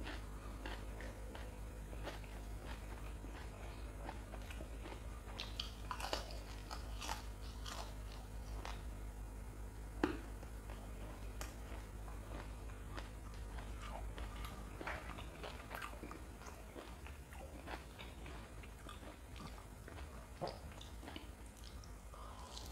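Close-miked chewing of deep-fried lentil fritters (vade), with irregular crisp crunches and crackles and one sharp click about ten seconds in. A steady low hum runs underneath.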